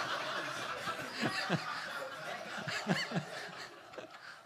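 A room full of people laughing together, with a man's chuckles rising out of it twice, dying down near the end.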